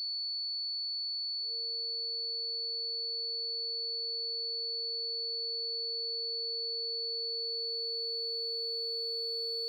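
Electronic sound-design drone of pure steady tones: a thin high whine throughout, joined about a second and a half in by a lower steady tone that fades in. Faint further tones creep in near the end.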